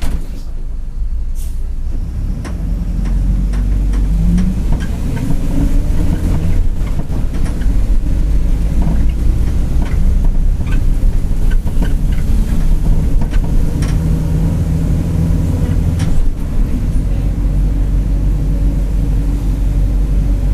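Mercedes-Benz OF-1721 BlueTec 5 bus's diesel engine pulling the bus along, its low drone building over the first few seconds and changing briefly about 16 seconds in, with scattered rattling clicks. A growl from the rear differential runs under the drive, the sign of a worn differential.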